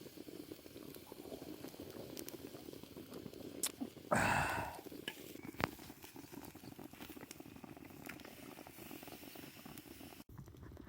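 Food bubbling and sizzling steadily as it cooks over a wood fire, with fine crackling ticks throughout. About four seconds in comes a brief, louder rush of hissing noise.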